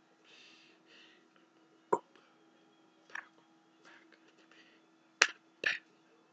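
A man's hands tapping and slapping against each other and his face as he signs: four sharp taps, one about two seconds in, one about a second later, and the two loudest close together near the end, with soft breathy hisses at the start.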